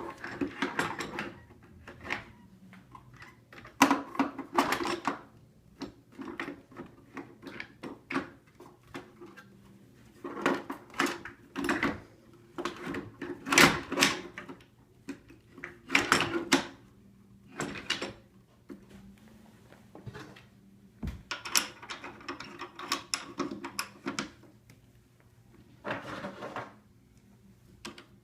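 Parts of an Aeron office chair being handled and fitted back together: irregular clicks, knocks and short clattering rattles, with a few louder knocks.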